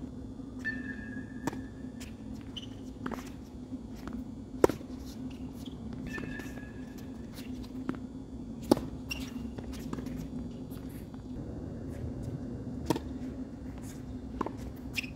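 Tennis ball struck by rackets: sharp pops a few seconds apart, three of them loudest, with fainter hits between, over a steady low hum. A few short high squeaks come early on and again midway.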